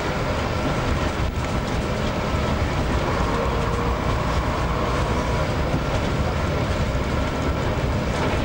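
Bus engine and road noise heard from on board a moving double-decker bus: a steady rumble with faint steady tones.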